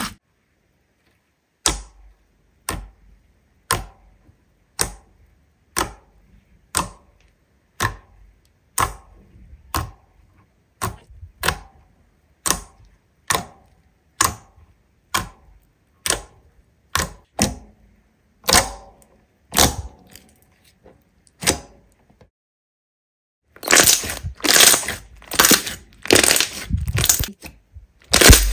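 Slime being worked by hand, giving sharp clicking pops about once a second with short silences between. About five seconds before the end, a denser run of crunching starts.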